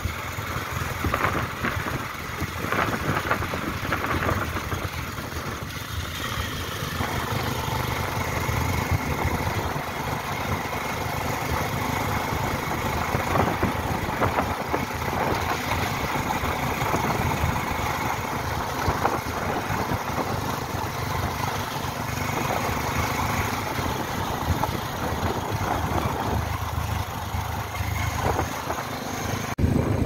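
A motor vehicle's engine running steadily, with a constant low hum under a noisy rush. It breaks off abruptly just before the end.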